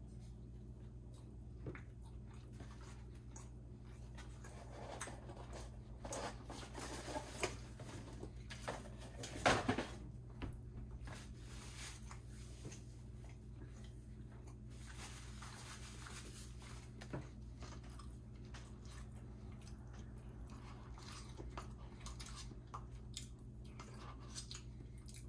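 A person chewing and biting food, with wet mouth noises and small clicks, busiest between about five and ten seconds in. A steady low hum runs underneath.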